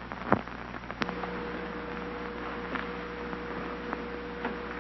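Hiss and steady hum from an old film or tape soundtrack, with a few scattered clicks and pops; the hum comes in about a second in.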